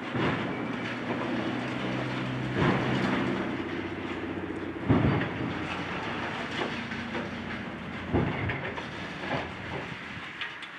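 Heavy demolition machinery at work: a diesel engine runs steadily while building debris crashes down in four loud impacts a few seconds apart.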